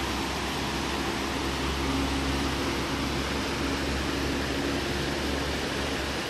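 Fast-flowing river rapids: a steady, even rush of whitewater with a low rumble underneath.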